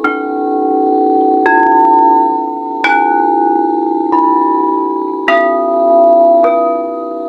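Singing bowls struck one after another with a mallet, about one strike every second and a quarter, each at a different pitch. The notes ring on and overlap into a sustained shimmering chord.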